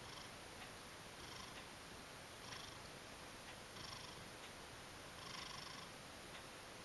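Ragdoll cat purring faintly, the purr swelling in regular pulses about every second and a half.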